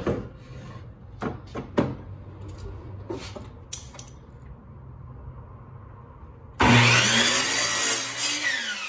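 Scattered knocks and clicks of a wooden board being set against the fence of a miter saw. About six and a half seconds in, the saw's motor starts suddenly and runs loud through a short cut in the board, then winds down with a falling whine near the end.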